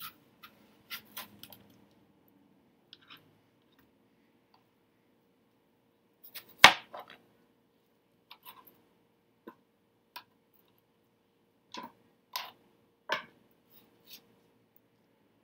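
Knife cutting cantaloupe on a cutting board: scattered light clicks and taps of the blade meeting the board, with one sharp knock about six and a half seconds in and a few more knocks near the end.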